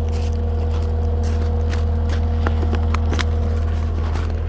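Old backhoe's engine idling with a steady low hum, with scattered clicks and scrapes over it.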